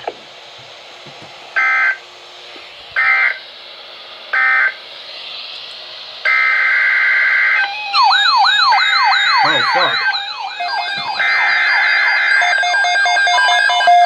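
NOAA Weather Radio receivers going off for a new alert. First come three short, evenly spaced bursts of the digital alert header code. Then, about eight seconds in, the radios' alarms sound together: a repeating rising-and-falling siren warble, with steady beeping from other receivers layered on toward the end.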